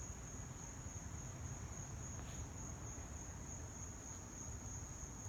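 Steady high-pitched insect trilling, one unbroken note, over a low rumble.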